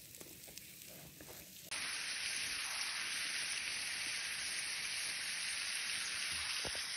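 Chunks of lamb with onion and garlic sizzling in a frying pan: a steady, even hiss that comes in abruptly about two seconds in.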